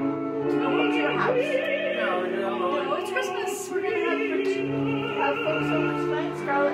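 Opera music: a singer holding long notes with vibrato over orchestral accompaniment.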